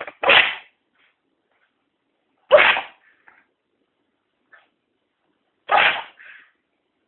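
A cat sneezing three times, each a short sharp burst, roughly three seconds apart, with a fainter little sound just after the last one.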